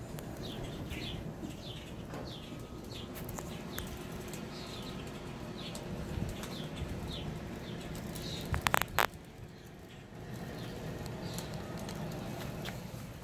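A bird chirping over and over, each call a short falling chirp, about one or two a second, over a steady low hum. About two-thirds of the way in come three sharp, loud clicks.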